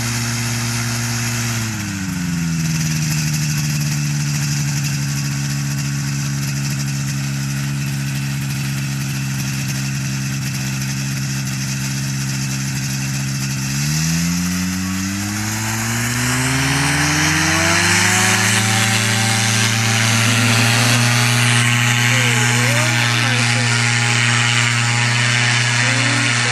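Powered parachute trike's engine and pusher propeller running at idle, its pitch dipping slightly about two seconds in. From about fourteen seconds in it revs up over a few seconds to full power and holds there, louder, for the takeoff run as the wing rises overhead.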